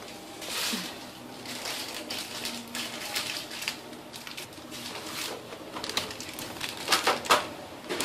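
Crinkling and rustling of plastic packaging being handled, in irregular bursts, with the loudest crackles near the end.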